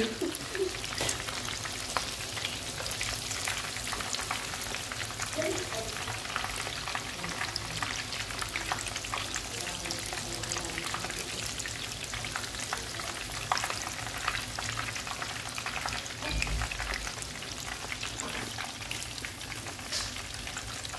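Breaded shrimp deep-frying in hot oil in a frying pan: a steady crackling sizzle.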